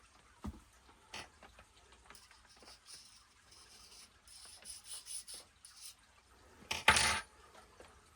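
Small metal parts and tools being handled on a workbench: scattered clicks and knocks, a spell of scraping and rubbing in the middle, and a louder short clatter near the end.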